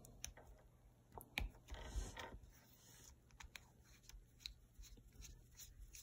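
Faint plastic clicks and rubbing as the threaded cap nut of an MC4 solar connector is screwed onto its housing by hand: a few scattered ticks among soft scraping.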